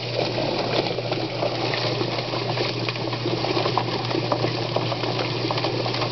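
Featherman drum-style chicken plucker running: a steady motor hum under a constant wet clattering and slapping as 8-week-old Cornish-Rock cross broilers tumble against the rubber plucking fingers, with water running into the drum.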